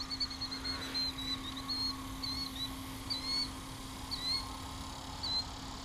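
A small bird chirping a series of short, quick notes, a few each second, over a steady low hum.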